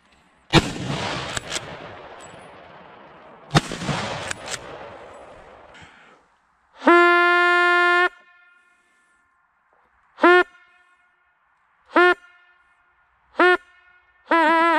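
Two rifle shots about three seconds apart, each echoing away. Then a brass hunting horn is blown: one long held note, three short blasts, and another long note starting near the end, the short notes bending in pitch as they start and stop.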